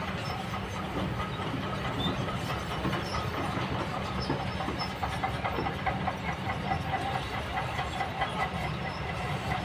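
Kobelco long-reach excavator's diesel engine running steadily as the arm and bucket work, with irregular clicks and knocks on top.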